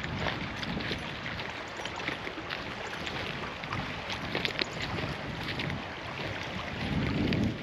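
Wind buffeting the microphone as a low rumble, with a stronger gust about seven seconds in, over scattered light clicks.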